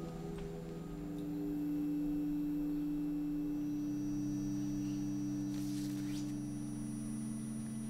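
Soft film score of sustained held tones, layered one over another, with a new lower note entering about four seconds in and another around six seconds. A brief rustle, plausibly paper, comes just before six seconds.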